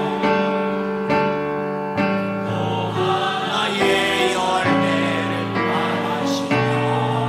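Small mixed choir of men and women singing a slow gospel song in Korean with instrumental accompaniment, holding a sequence of sustained chords.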